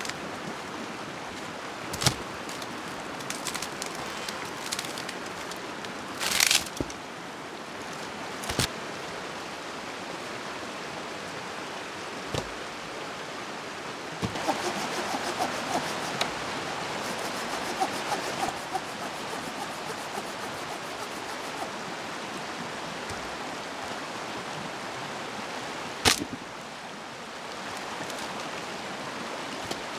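Steady rush of running water, broken by a few sharp knocks and rustles and, about halfway through, a few seconds of fast fine crackling.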